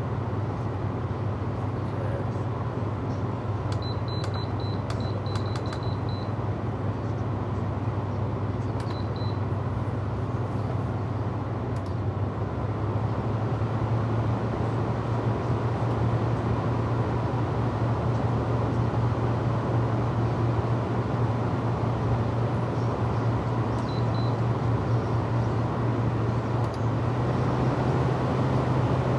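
LG 6000 BTU window air conditioner running with its front grille off: the compressor hums steadily under the rush of the fan, a brand-new unit running normally. A short run of faint high beeps comes about four seconds in.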